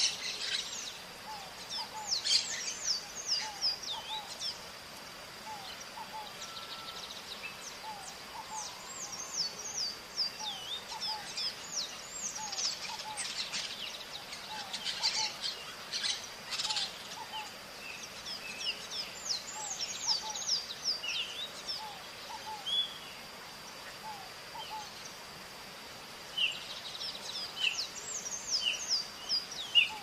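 Maritacas (small green parrots) calling: bursts of short, high, downward-sliding chirps with a few quieter lulls, over a steady thin high tone.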